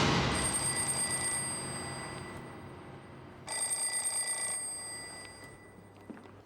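Telephone bell ringing: one ring at the start and another about three and a half seconds in, each fading away slowly.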